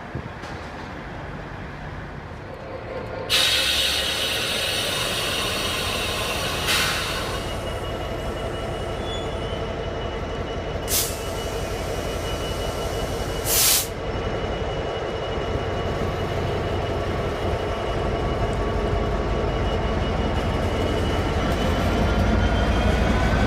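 Train at a station platform: sudden loud hiss about three seconds in, then short sharp hisses of air three more times, over a steady high squeal. Near the end a whine rises in pitch.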